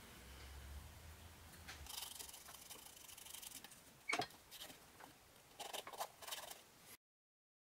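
Faint hand handling at the milling machine: light rustles and taps over a low hum that fades after about two seconds, a sharp click about four seconds in, then rustling of a paper slip held against the work near the end. The sound cuts off to silence just before the end.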